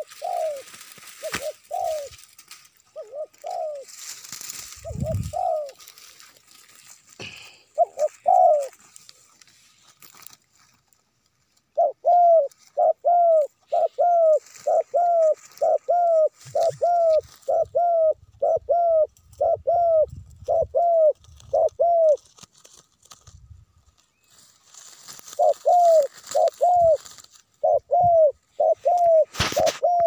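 Dove cooing: short, low coos, a few scattered ones in the first seconds, then long even runs of about two coos a second with a pause of a few seconds between runs.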